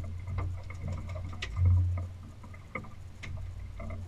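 Low rumble of wind and water aboard an offshore fishing boat, swelling loudest about one and a half seconds in, with scattered light clicks and knocks.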